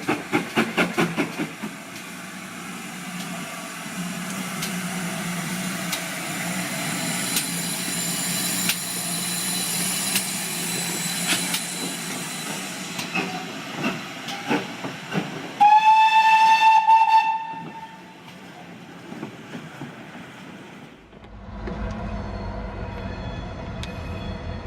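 Great Western Hall-class steam locomotive 4953 Pitchford Hall arriving: quick exhaust chuffs at first, then a steady hiss of steam with scattered clanks. One whistle blast, about a second and a half long, comes about 16 s in. Near the end a different low rumble of a train takes over.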